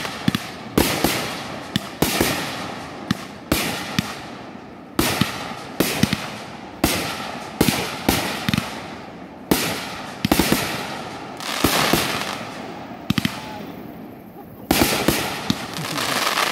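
Aerial fireworks bursting in quick succession: sharp bangs about once a second, each trailing off as it fades, with a short lull about two-thirds of the way through and then a dense volley of bursts near the end.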